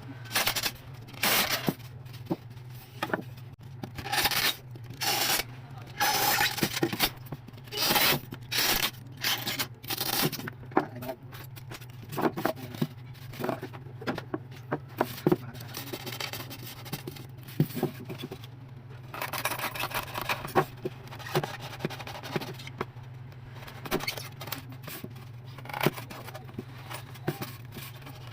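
Repeated scraping and rubbing strokes of a knife working on a plastic cooler, with scattered clicks and knocks, over a steady low hum.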